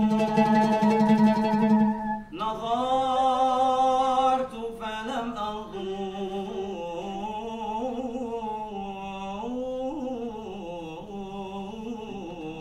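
A male solo voice singing a slow, melismatic Moroccan Sufi chant (inshad), holding long notes and sliding between them in ornamented turns. A new, louder phrase begins a little after two seconds in, and the voice is softer from about halfway.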